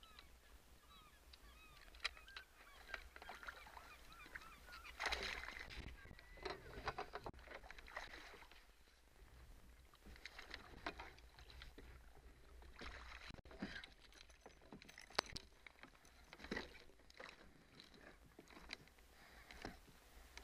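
Faint splashing of a hooked lake trout being netted beside a kayak, loudest about five to eight seconds in, with scattered knocks of the net and gear against the plastic hull. A run of short, high, wavering calls sounds in the first few seconds.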